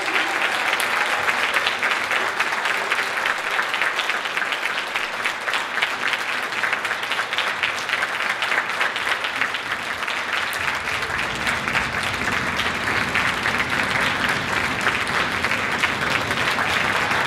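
Large concert audience applauding steadily, a dense, even clapping that carries on without a break.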